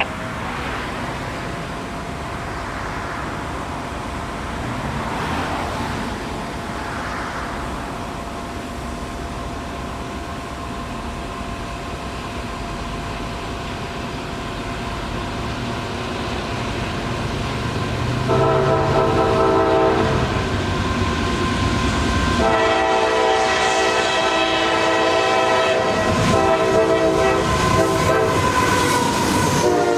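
Diesel freight locomotive's air horn sounding a chord of several notes: a short blast about two-thirds of the way in, then a long blast from about three-quarters in. Before the horn, the low rumble of the approaching train.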